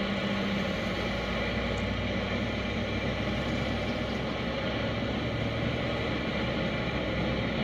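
Steady engine and road noise inside a vehicle at highway speed, with a low hum under it.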